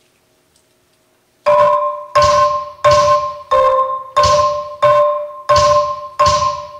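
Marimba notes struck in a steady, even pulse, about three strokes every two seconds on the same pitch, each ringing and dying away before the next. The strokes begin after about a second and a half of near silence.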